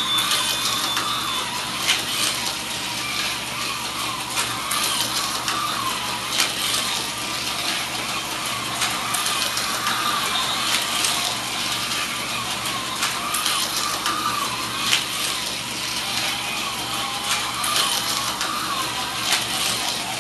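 Toy electric train running on sectional track: a steady motor whir with a wavering whine, and frequent clicks of the wheels over the rail joints.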